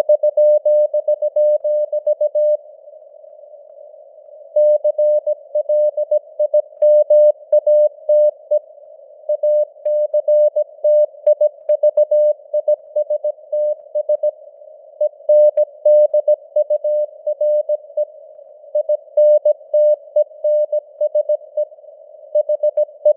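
Morse code (CW) sent at 17 words per minute as a single beeping tone of about 600 Hz, keyed in dots and dashes over a steady hiss of simulated radio noise. The letters run in groups separated by short gaps, with a longer pause of about two seconds a few seconds in.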